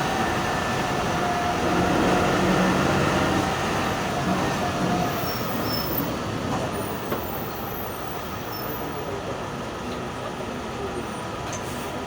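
VW 17-230 OD bus running, its MAN D0834 four-cylinder diesel and reconditioned ZF six-speed gearbox giving a steady pitched growl that fades out about five seconds in, leaving quieter running noise. The unusual growl is, on the uploader's account, due to the reconditioned gearbox.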